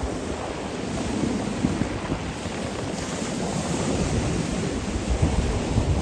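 Black Sea surf breaking and washing on a pebble shore, a steady rushing, with wind rumbling on the microphone.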